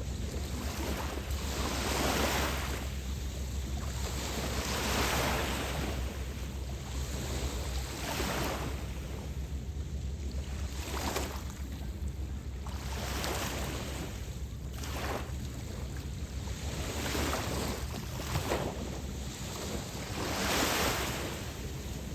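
Waves breaking and washing onto the shore, each wash swelling and fading about every two seconds. Wind on the microphone adds a steady low rumble underneath.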